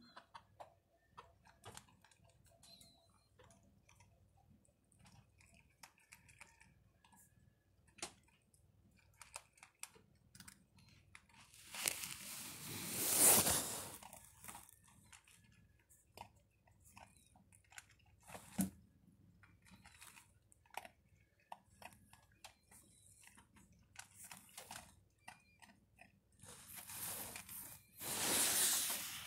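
A puppy chewing and crunching dry kibble from a metal bowl, in many short crisp crunches. Twice, just past the middle and near the end, a louder rustling hiss covers it for a second or two.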